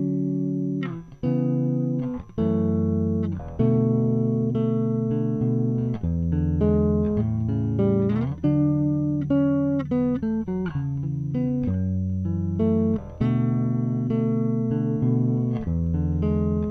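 Electric bass played unaccompanied: a line of plucked notes, each ringing out and fading, played as a tone demonstration of how the resistance value of its volume and tone pots changes the sound.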